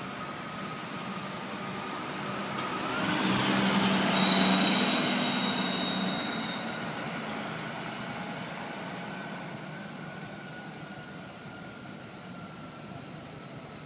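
Street traffic: a passing vehicle's engine swells to its loudest about four seconds in and then slowly fades away. A faint steady high tone runs underneath.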